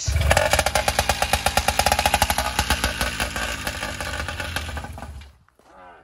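Two-stroke motorized-bicycle engine firing up on its pull start and running with a rapid popping beat, then fading and dying about five seconds in as it runs out of gas.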